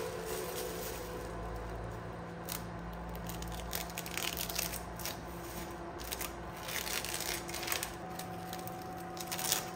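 Masking tape being peeled off a freshly painted plastic car door panel, a series of short ripping and crinkling sounds as the tape and masking plastic are pulled away.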